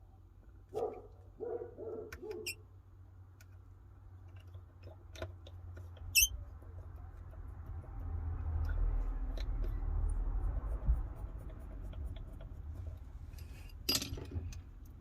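Small tools and phone parts clicking and tapping during iPhone reassembly, with scattered sharp clicks, a low handling rumble in the middle and one louder clack near the end. A few short squeaky tones come about a second in.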